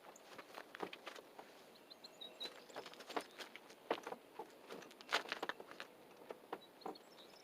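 Irregular light clicks and taps, unevenly spaced, with a few faint high chirps about two seconds in.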